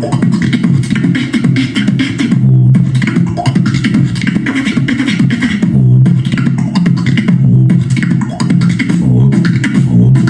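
Human beatboxing: fast mouth-made drum sounds, sharp snares and clicks, over a continuous low bass line that moves in pitch.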